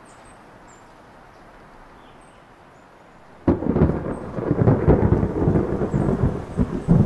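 Quiet outdoor background with a few faint high bird chirps, then about halfway through a sudden loud thunderclap that goes on as a long crackling rumble of thunder.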